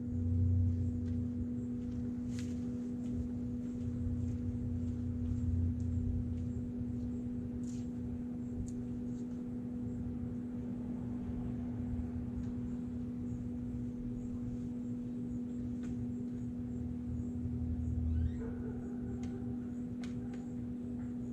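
A steady, single-pitched hum drones without a break over a pulsing low rumble, with a few faint clicks.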